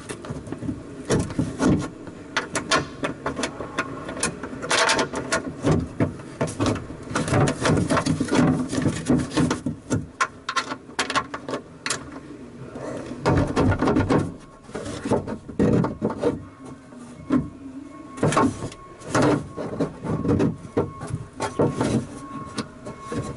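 Irregular clicks, clinks and knocks of hand-tool work inside a car door, as the door latch and power lock actuator assembly is fitted and its bolts are started.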